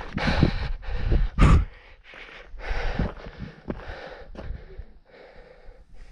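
A climber's heavy breathing, breaths roughly a second apart, out of breath in the thin air of high altitude. Low rumbles hit the microphone in the first second and a half.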